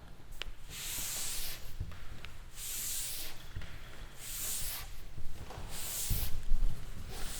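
Cleaning spray bottle spraying in four short hissing bursts, about a second and a half apart, over a low rumble.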